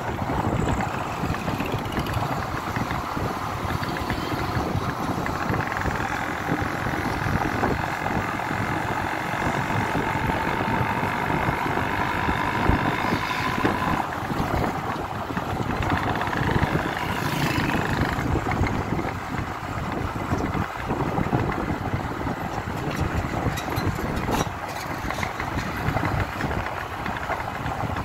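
Motorcycle engine running as the bike rides along, heard from the bike itself, mixed with a dense rumble of wind and road noise. A faint whine rises slowly near the middle.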